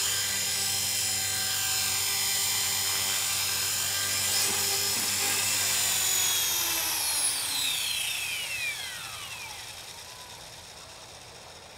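Align T-Rex 450 Pro electric RC helicopter's motor and rotors whining steadily, then spooling down once it is set on the ground: about two-thirds of the way in the whine slides down in pitch and fades away.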